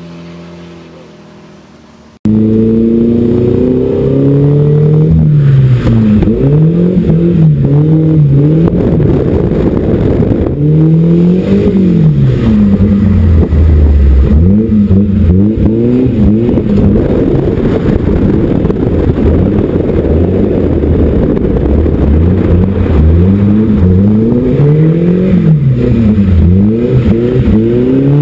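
Volvo drift car engine revving up and down over and over, its pitch climbing and dropping every couple of seconds, loud and close. It starts abruptly about two seconds in, after a quieter steady engine hum.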